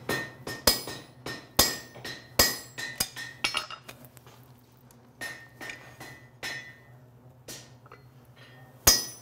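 Hammer blows on a hand punch driven into red-hot steel on an anvil, punching a slot: each strike a sharp metallic clink with a brief ring. About six blows fall in the first few seconds, a few lighter taps follow in the middle, and there is one hard blow near the end.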